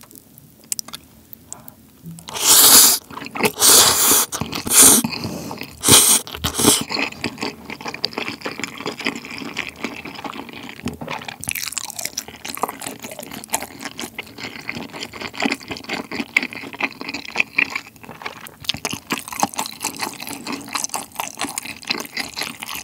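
Close-miked eating of sauced chicken and fire noodles. A run of loud slurps of noodles comes between about two and seven seconds in, then steady wet chewing with many small clicks.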